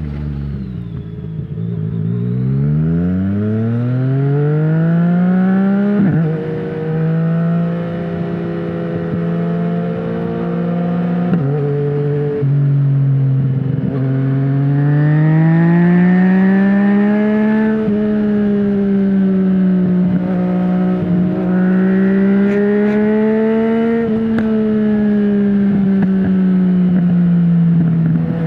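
Yamaha MT-09's 847 cc three-cylinder engine through an Akrapovic full exhaust with no dB killer, under way. The revs dip, then climb steadily for about five seconds to a gear change. The engine then holds a fairly steady speed, with another gear change near the middle and slow rises and falls in pitch after that.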